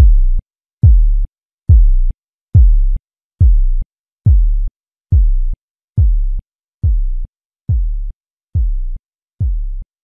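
A deep electronic bass pulse repeated a little more than once a second, each hit stopping sharply, slowly growing quieter over the stretch.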